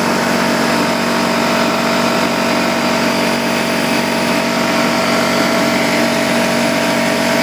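Porter Cable air compressor running steadily with a constant motor-and-pump hum, building pressure in its tank as it nears its 150 psi cut-off.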